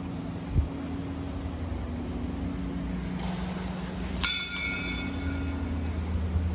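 A metal temple bell struck once about four seconds in, ringing out and fading over about a second, over a steady low hum.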